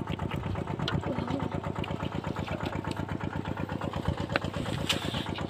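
Small engine running steadily with a fast, even beat, and a few sharp clicks over it.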